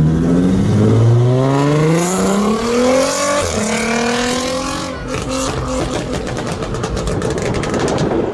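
Car engine accelerating hard, its pitch climbing through an upshift, then lifting off into a rapid string of exhaust pops and crackles on the overrun.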